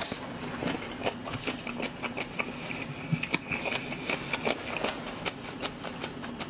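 Close-miked chewing of a mouthful of food, with many small wet clicks and smacks, over a steady low hum.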